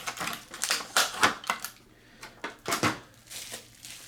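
Plastic packaging of a HeroClix miniature being handled and opened: a run of short sharp clicks and crinkles over the first three seconds, then quieter rustling.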